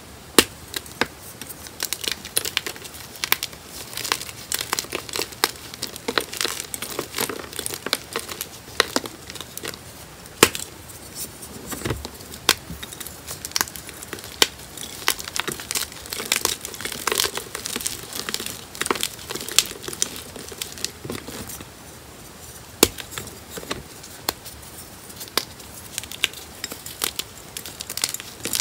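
Blocks of gym chalk snapped and crushed by hand: a dense run of crisp, irregular crunches and cracks, with a brief lull about three quarters of the way through.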